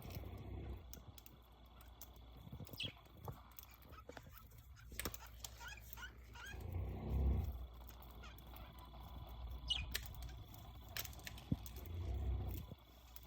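Pet budgerigar giving scattered short chirps and quick warbling notes, busiest in the middle. Two low rumbles, the loudest sounds, come about halfway through and again near the end.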